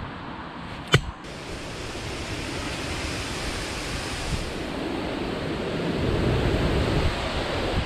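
Rushing noise of wind and handling on an action camera's microphone while hands work close to it, growing louder over the last few seconds. One sharp click about a second in.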